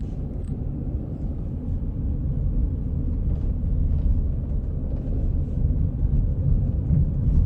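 Steady low rumble of a car driving along a street, heard from inside the cabin: road and engine noise with no clear pitch.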